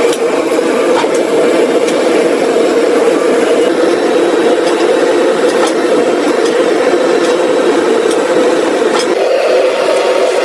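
Steady machine running, a constant drone with a few faint ticks and clicks over it.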